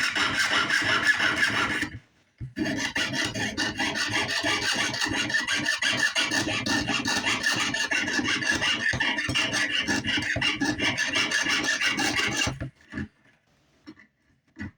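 Jeweler's saw cutting through sheet metal in rapid, even back-and-forth strokes. It pauses briefly about two seconds in, then saws steadily until stopping near the end.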